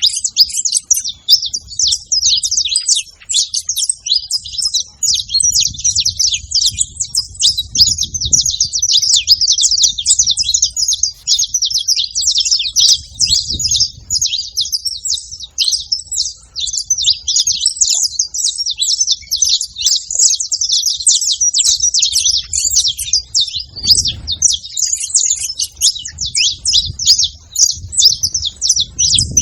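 Several saffron finches chirping and singing together, a dense, unbroken high-pitched twittering, with a low rumble underneath now and then.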